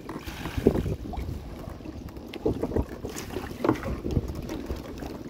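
Irregular splashes and knocks of water against a small boat as a fish trap is hauled and emptied, with the loudest bursts about a second in and again near the middle.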